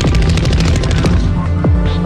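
Dramatic soundtrack music with steady low tones and falling-pitch hits, with a fast rattle of automatic gunfire over it that stops about a second in.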